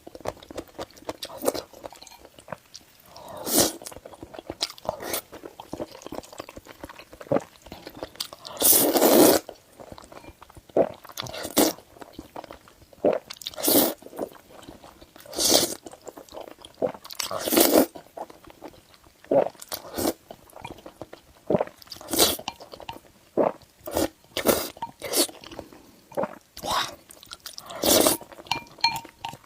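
Close-miked eating of noodles: chewing and biting, with a loud mouth sound every second or two and a longer one about nine seconds in.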